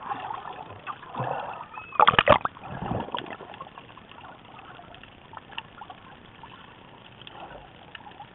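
Underwater splashing and bubbling from snorkelers swimming close to the camera, with a few louder splashes in the first three seconds, the biggest about two seconds in, then a quiet steady hiss with faint ticks.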